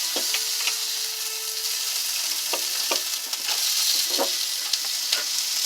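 Steady sizzling hiss of fresh-ground hamburger frying in a pan, with a few faint short sounds over it.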